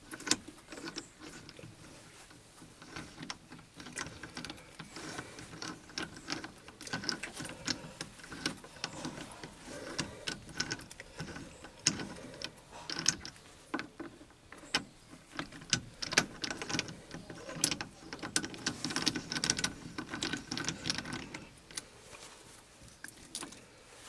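Chuck key turning the jaw screws of a 125 mm four-jaw independent lathe chuck as its jaws are put back in, giving a run of irregular metal clicks and ratcheting rattles.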